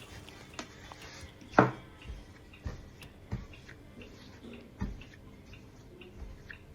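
Scattered light knocks and taps of kitchen utensils and containers being handled, with one louder knock about a second and a half in.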